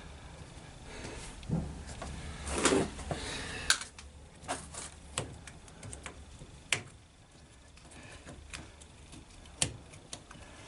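Handling noises from work on a washing machine's door latch and seal: a rubbing scrape about two and a half seconds in, then scattered sharp clicks and knocks of plastic and metal parts.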